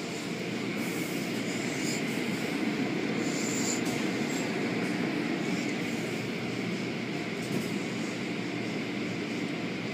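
Automatic tunnel car wash running: a steady wash of water spray and machine noise as the hanging cloth curtains sweep over a car.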